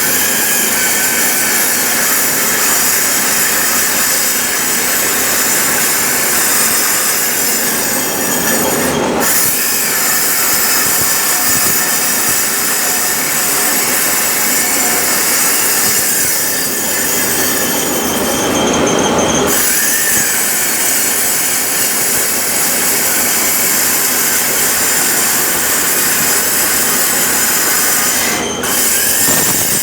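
Power tool cutting steel: a continuous, loud, high-pitched metallic screech that eases briefly three times.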